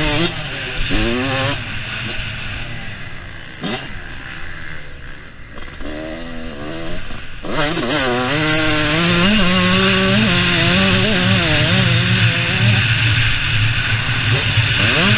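Husqvarna CR125's 125cc two-stroke single-cylinder engine under way on a motocross track. It revs up in quick rising sweeps near the start, eases off and runs lower for a few seconds, then is held loud at high revs from about halfway, the pitch wavering with the throttle.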